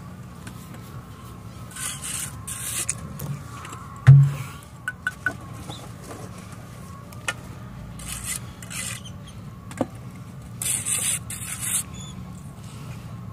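Masons' trowels scraping and spreading mortar on concrete block, in several short rasping strokes. A sharp knock about four seconds in is the loudest sound, followed by a few lighter clicks.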